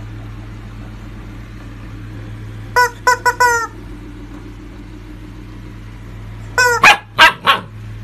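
Rubber chicken dog toy squawking: four short squawks in quick succession about three seconds in, and another near the end. Right after the last one the puppy barks three times, louder and harsher than the toy.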